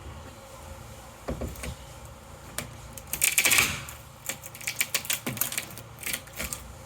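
Crowbar prying out the last of a drilled-through section of a door panel: scattered clanks and cracks, a loud crunch about three seconds in as the piece breaks free, then a run of smaller clattering knocks.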